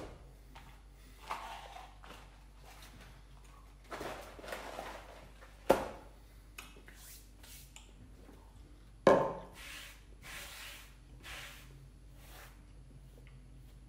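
Handling noises while clearing up at a kitchen counter: scattered knocks of things being moved and set down, with two sharp knocks about six and nine seconds in, the second the loudest. About ten seconds in comes a brief rubbing as hands wipe crumbs off a glass cooktop.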